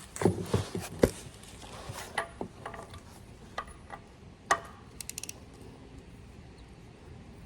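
Metal hand tools clanking and knocking, with the loudest knock about a second in, and a short run of quick ratchet-wrench clicks about five seconds in.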